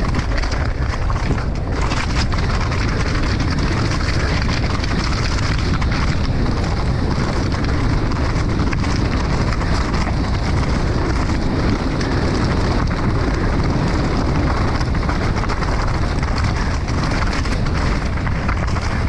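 Mountain bike descending a rocky, loose-stone trail: tyres crunching and crackling over gravel and rock, with many small clicks and rattles from the bike, under a steady rush of wind on the camera microphone.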